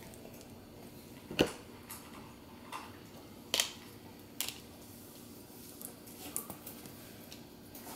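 A few scattered small clicks and ticks of LEGO pieces being handled and pressed together on a tabletop, the sharpest about a second and a half in.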